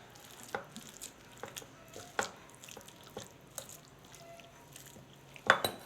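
A fork mashing cooked dried figs and garlic with olive oil in a bowl: scattered light clicks and taps of the fork against the dish, with a sharper click about two seconds in and a quick run of clicks near the end.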